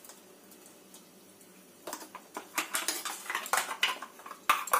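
A metal spoon scraping and knocking inside a stainless-steel mixer-grinder jar as mashed banana paste is scraped out into a steel bowl. After a quiet first two seconds, a quick run of clinks and scrapes begins.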